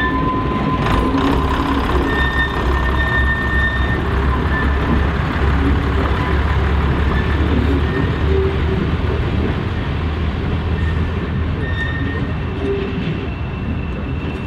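Class 101 first-generation diesel multiple unit pulling away, its underfloor diesel engines running under power with a deep, steady rumble. The sound eases off slightly near the end as the train moves away.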